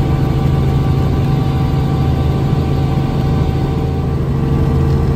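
Helicopter engine and rotor noise heard from inside the cabin in flight: a loud, steady low drone with a few faint steady tones above it.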